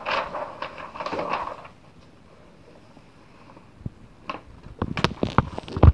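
Large newsprint pages of a bound newspaper volume being turned, a papery rustle for the first second and a half. After a quiet stretch, a run of knocks and thumps against the wooden stand and bound volume, the loudest just before the end.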